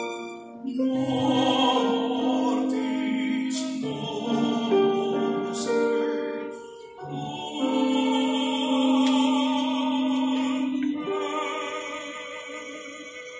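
Church music at a funeral service: a hymn sung in long held notes with vibrato, in phrases a few seconds long.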